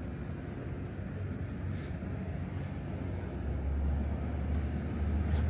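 A low, steady engine rumble from an idling vehicle, swelling slightly louder a few seconds in.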